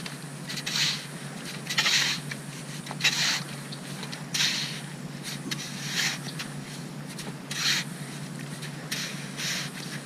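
Shovel blade scraping and cutting through wet sand in repeated strokes, about once a second.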